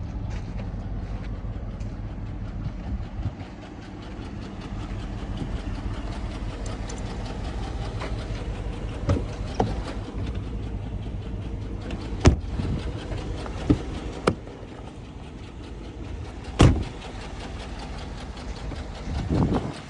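2007 Chevrolet Avalanche's V8 engine idling steadily, with several short sharp clicks or knocks scattered through the second half.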